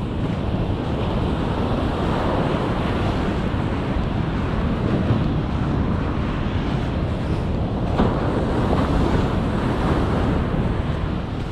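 Ocean surf breaking and washing on a sandy beach, mixed with wind buffeting the microphone. A single short click about eight seconds in.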